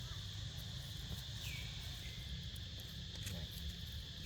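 A steady insect chorus holding one high note, over a low rumble, with a few faint clicks and a short falling squeak about a second and a half in.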